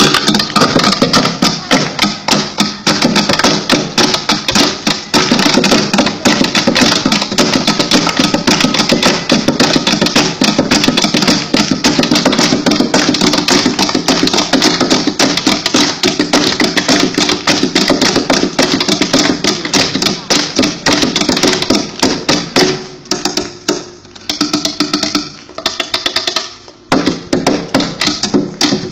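Music with dense, fast percussive tapping, with brief drops in level near the end.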